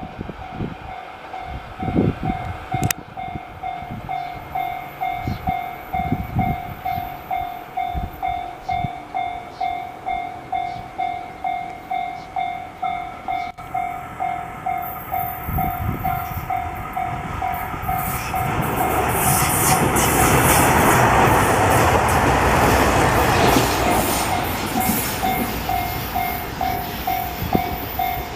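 Level-crossing warning bell ringing in a steady, rapid ding-ding throughout. A train runs through the crossing with wheels clacking over the rail joints, growing loud and loudest about two-thirds of the way in before easing off.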